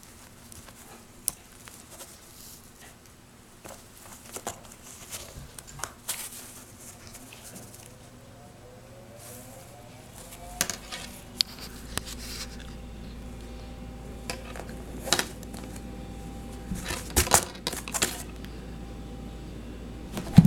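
Scattered light clinks and knocks of dishes, with a low steady hum that comes on about halfway through.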